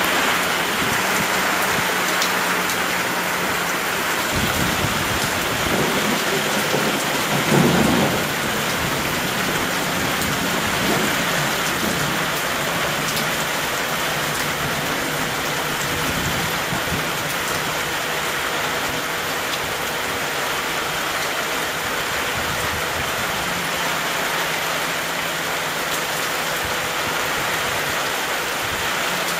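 Heavy rain pouring down steadily. A low rumble swells about five to eight seconds in.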